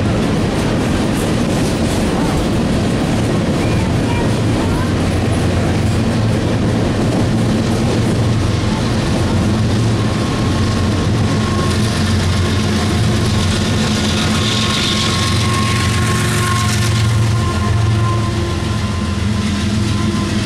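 Empty Union Pacific coal hopper cars rolling by on the rails, then a diesel locomotive at the rear of the train passing, its engine adding a low hum and a steady whine from about halfway through.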